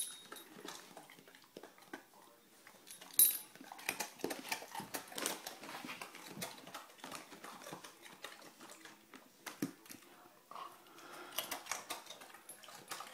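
Airedale terrier crunching and chewing a raw carrot: irregular crisp crunches, with the sharpest bites at the start and about three seconds in.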